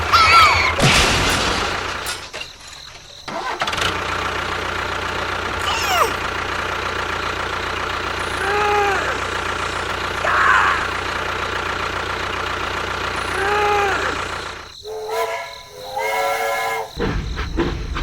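A small engine running steadily, with brief pitched calls and whistles over it. The engine cuts out for about a second near the start and again for a moment near the end.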